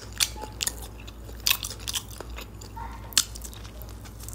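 Close-miked wet chewing and biting of a soft, juicy fried chicken drumstick, with irregular sharp lip and mouth smacks, about half a dozen over a few seconds.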